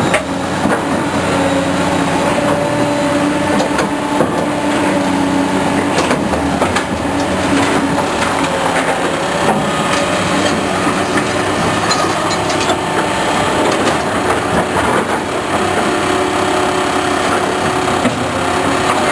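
Heavy road-construction machinery running steadily: a continuous diesel engine drone with scattered knocks and clanks.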